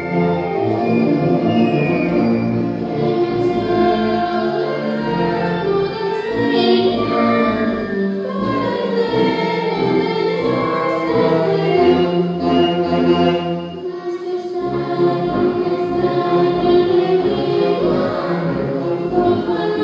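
Choir singing with orchestral accompaniment.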